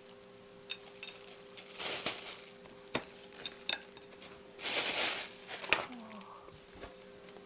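A plastic bag rustling and a few light clicks and taps as a tray with a spatula and the bag is moved off a table, with the loudest rustle about five seconds in.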